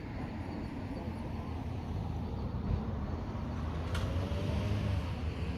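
Steady low rumble of car traffic driving by, with one sharp click about four seconds in.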